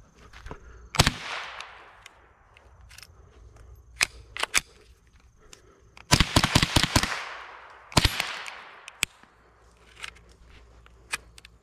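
.22 rifle firing: a single shot about a second in, then a fast string of about six shots about six seconds in, and another shot about a second later, with fainter sharp cracks in between.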